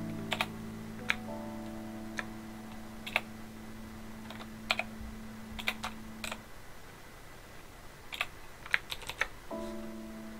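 Computer keyboard keys pressed in sparse, uneven single clicks, with a few quick runs of two or three. Soft held background-music notes play underneath, dropping out for a few seconds near the end.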